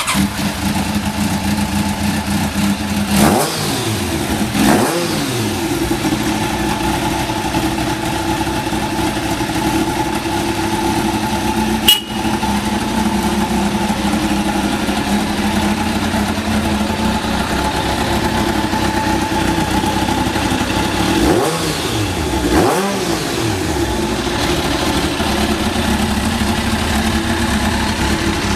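Kawasaki ZZ-R1100's inline-four engine idling steadily, blipped briefly four times: twice a few seconds in and twice about three-quarters of the way through. The idle is even with no abnormal noise, as the seller presents it; a single sharp click sounds near the middle.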